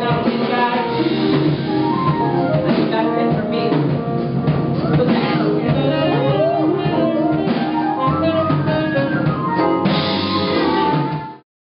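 Live band playing an instrumental groove, with saxophones over drum kit and guitar; the music cuts off abruptly near the end.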